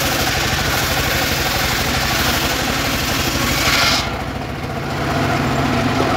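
Engine-driven mobile circular sawmill ripping a weru log: a steady engine drone under the hiss of the blade cutting through the wood. The cutting noise stops suddenly about four seconds in as the blade clears the log, leaving the engine and the freewheeling blade running, and builds again near the end as the next cut begins.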